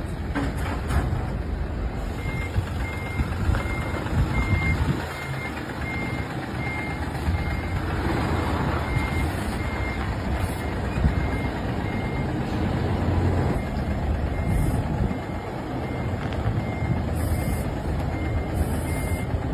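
Container truck's diesel engine running low and steady under its reversing alarm, a regular series of short high beeps that starts about two seconds in: the truck is in reverse, backing up.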